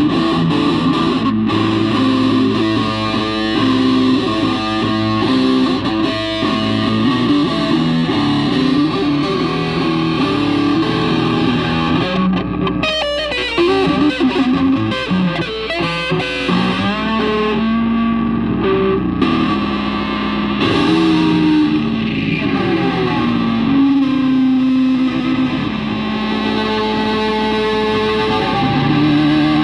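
Electric guitar played through a Marshall amplifier with distortion, a steady run of riffs and chords; near the middle, a few seconds of sliding, wavering pitches. The just-repaired amp is working.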